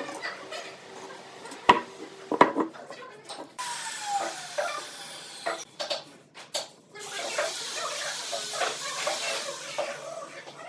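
Two sharp knocks, a steel ruler being set down on a wooden workbench, followed by the soft scratching and small clicks of a marker pen drawing curved lines on a pine block.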